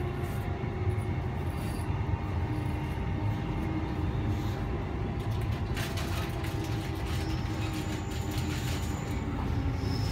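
Interior ride noise of a Queensland Rail SMU 260 electric multiple-unit train running: a steady low rumble from the wheels and track with a steady hum from the traction equipment. A few clicks and brief faint high squeals come in the second half.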